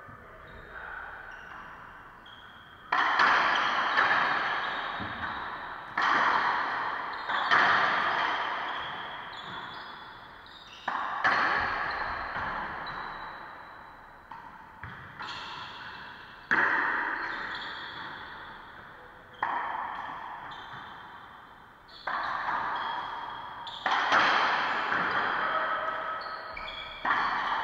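Racquetball rally: a run of sharp ball strikes from racquets and walls, about a dozen over the stretch, every one to three seconds. Each crack echoes and fades slowly around the enclosed court.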